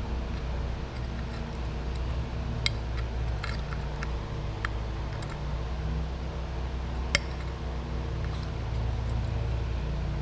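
A few sharp clicks and knocks as a metal tail light housing and its new bulb socket are handled, the sharpest about seven seconds in, over a steady low background hum.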